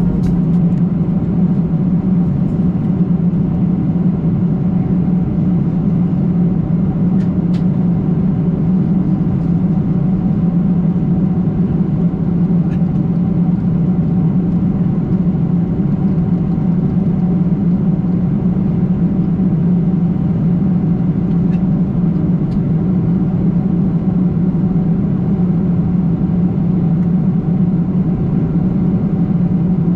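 Steady drone inside the cabin of a Boeing 747-400 airliner: jet engine and airflow noise with a strong low hum, unchanging throughout, with a few faint clicks.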